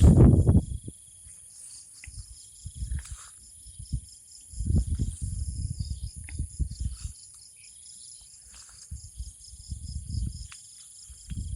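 Wind gusting against the microphone in uneven low rumbling bursts, over a steady high-pitched chirring of insects.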